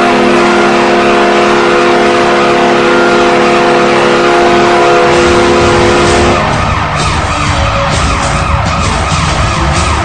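Hockey arena goal horn blasting one long, steady, loud note. About six seconds in it gives way to a noisier passage with repeated rising-and-falling siren-like wails.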